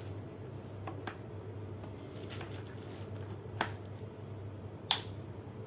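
Steady low electrical hum with a few short, sharp clicks; the sharpest comes about five seconds in.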